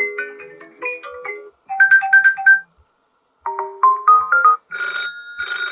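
Huawei P50 Pocket ringtones played one after another, each cut off after a few seconds: short melodies of bright pitched notes, a rising run of notes about halfway, then two short bursts of dense ringing near the end.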